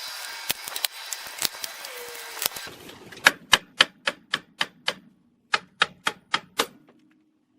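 Ratchet wrench turning the screw of a C-clamp ball joint press, pressing out a lower ball joint: sharp metallic clicks at about four a second in two runs, a run of eight, then five more after a short break.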